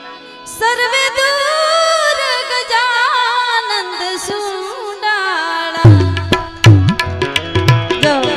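A woman sings a devotional bhajan, opening with a long, wavering held note with vibrato over a steady accompaniment. About six seconds in, hand drums come in with strong, rhythmic strokes.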